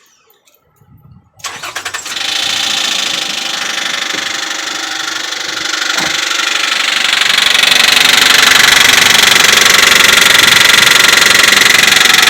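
2004 Nissan Pathfinder's 3.5-litre V6 cranked by the starter, catching after about half a second and running, noticeably louder from about seven seconds in. It runs with the bad knocking the owner is recording, whose cause he does not yet know.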